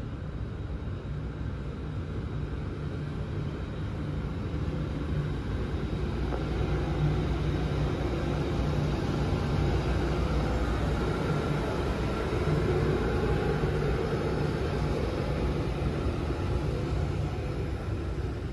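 Freight train hauled by a Siemens Vectron electric locomotive approaching and passing, then wagons carrying lorry trailers rolling by. A steady rumble of wheels on rail grows louder as the locomotive goes past, about halfway through.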